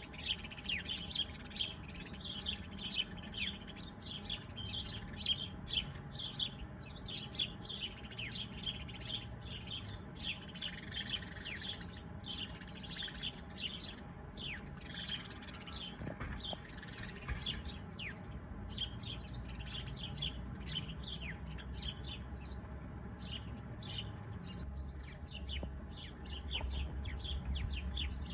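Several small birds chirping in quick, short downward-sliding notes, busiest in the first half and thinning out later. A low rumble grows under them near the end.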